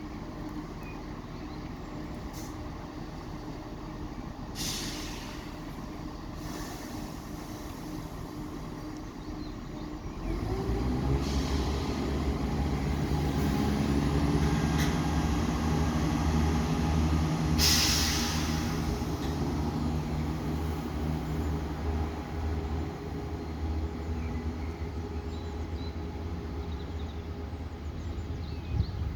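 Diesel train engine idling with a steady hum, then about a third of the way in it grows much louder and runs hard for some ten seconds before easing off, as when a train pulls away. There are two short air hisses, one early and one in the middle of the loud part.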